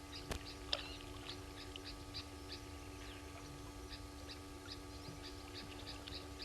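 Faint chorus of small animals chirping: many short, high notes repeating about three or four times a second, over a steady electrical hum. A single sharp click comes about a third of a second in.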